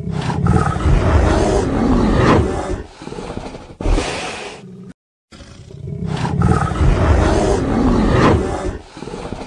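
A deep animal roar lasting about three seconds, then a thump and a brief silence, and the same roar again about five seconds later.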